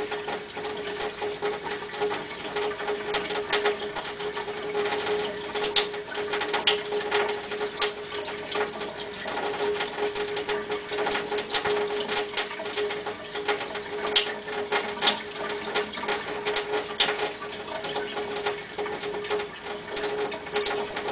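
A dry cloth towel rubbed briskly over oily hands, a dense, irregular scratchy rustle, over a steady hum.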